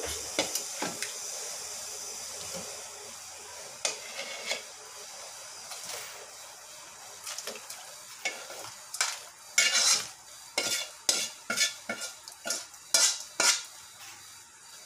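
Sautéed chicken pieces tipped from a pan into a metal pot of hot water, with a soft hiss that fades over the first few seconds. In the second half a metal ladle scrapes and clinks against the pan and the aluminium pot in a quick run of strokes.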